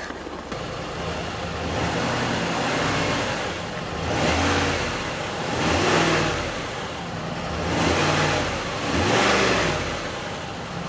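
Land Rover 4.4-litre TDV8 twin-turbo diesel V8 heard at the twin exhaust tailpipes, idling and revved four times, each rev rising and falling back to idle.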